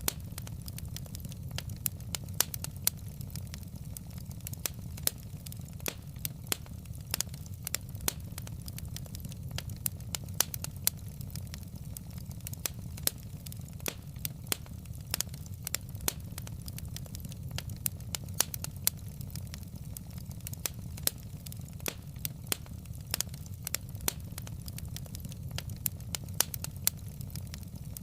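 Logs burning in a fireplace: many sharp, irregular crackles and pops over a steady low rumble of the flames.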